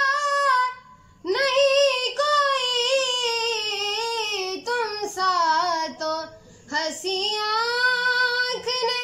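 A boy singing an Urdu naat unaccompanied, drawing out long ornamented notes on a single line, with short breaks for breath about a second in and near six seconds.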